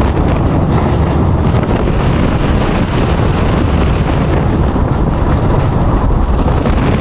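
Wind buffeting the microphone of a camera riding along a gravel road at speed: a loud, steady rush heaviest in the low end, with no clear engine note.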